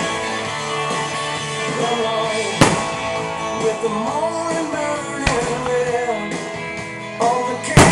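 Rock music with singing and guitar, cut through by three sharp firework bangs: one about two and a half seconds in, a fainter one about five seconds in, and the loudest near the end.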